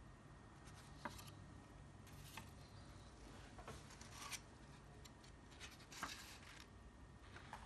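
Faint unboxing handling noise: paper rustling and light clicks and scrapes as a fountain pen's clear plastic case is opened and its paper sleeve folded back. The sharpest clicks come about a second in and about six seconds in.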